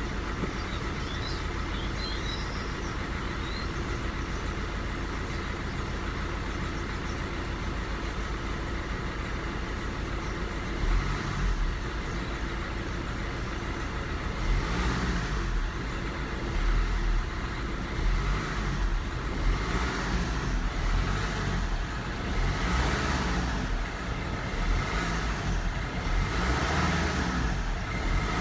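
Car engine running, steady at first, then from about ten seconds in with louder, uneven low rumbling.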